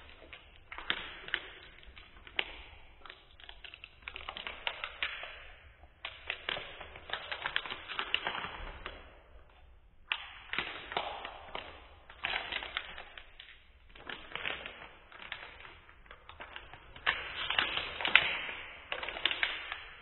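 Foil wrapper of a trading-card pack crinkling and tearing in irregular bursts of crackles and clicks as it is pulled open by hand, with short pauses between.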